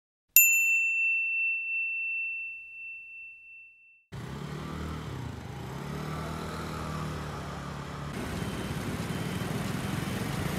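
A single clear bell-like chime strikes and rings out, fading with a slight wavering over about four seconds. Then steady vehicle and street noise with a low engine hum cuts in abruptly.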